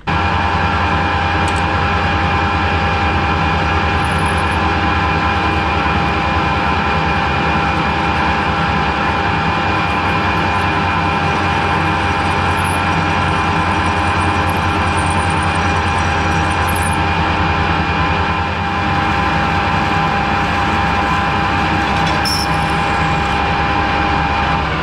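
Harrison lathe running under power with a steady mechanical whine over a low hum, its spindle turning a 12 mm stainless bar that is being drilled from the tailstock. The sound eases slightly about two thirds of the way through.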